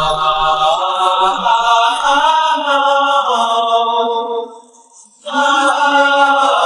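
Background song: a singing voice holds long, slowly gliding notes over a steady accompaniment. It drops out briefly about four and a half seconds in, then comes back.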